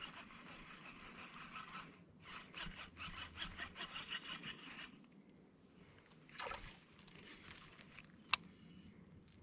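Fishing reel being cranked during a retrieve, a rapid rasping and clicking for about five seconds with a short pause near two seconds. A single swish follows a little past halfway, and a sharp click comes near the end.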